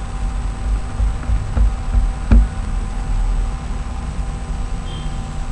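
A few dull knocks and bumps, the loudest about two and a half seconds in, over a steady electrical hum and hiss.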